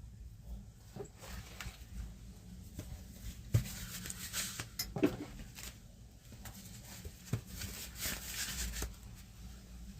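Hand tools and metal parts being handled: scattered clicks and light knocks with bursts of rustling, the sharpest knocks about three and a half and five seconds in.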